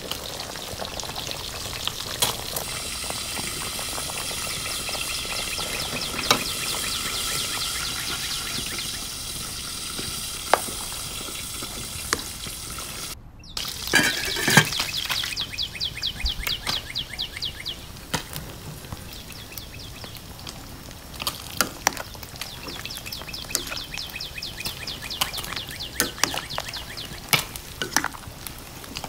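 Vegetable soup boiling in a stainless steel pot: a steady hiss of bubbling broth with scattered pops and clicks. It cuts out briefly about halfway through, then comes back with a burst of faster crackling pops that thins to occasional clicks over a quieter simmer.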